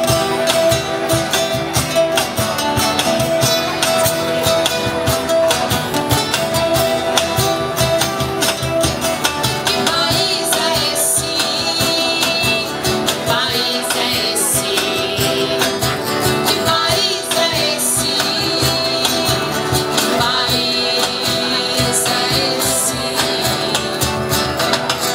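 An acoustic guitar ensemble strumming chords together with a cajón keeping the beat, and voices singing, louder from about ten seconds in.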